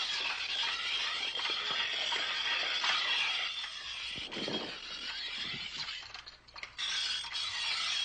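Steel blade held against a turning grindstone: a steady, high-pitched screeching scrape that breaks off briefly about six seconds in and then starts again.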